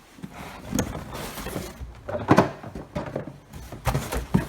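Hands unpacking canister filter parts and their packaging: irregular knocks, clatters and rustling, with the loudest knock a little past two seconds in.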